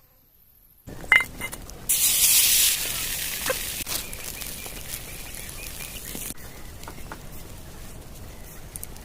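Food sizzling on a hot pan: a loud sizzle starts about two seconds in, eases off and stops abruptly about six seconds in, with a few light clinks of a utensil.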